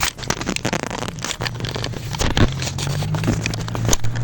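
Scooter setting off and rolling over rough pavement: a steady low hum from the wheels under a dense rattle of clicks and scrapes.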